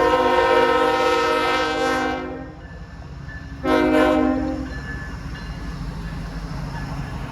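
Multi-chime air horn of a GE Tier 4 GEVO freight locomotive sounding a long chord blast that fades out about two and a half seconds in, then a second, shorter blast about a second later. It is a horn salute for trackside railfans. Under the horn runs the low rumble of the passing freight train.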